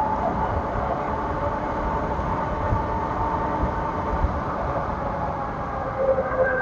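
Electric bike's motor whining steadily under throttle, several tones together whose pitch shifts about six seconds in, over the low rumble of wind buffeting the microphone.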